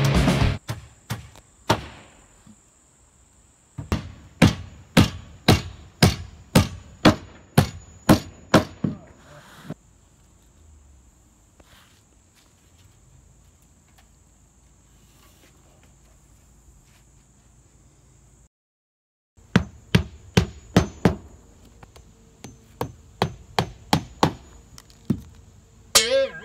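Hand hammer driving roofing nails through asphalt shingles: runs of sharp, evenly spaced blows about two a second, with a quiet pause in the middle.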